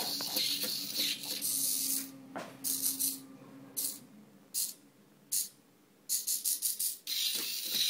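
Hacked Hexbug Spider robot's small gear motors and plastic legs whirring and rattling as it scans around for an open path. A steady rattle gives way to short bursts about a second apart, then a quick run of about six short stutters near the end.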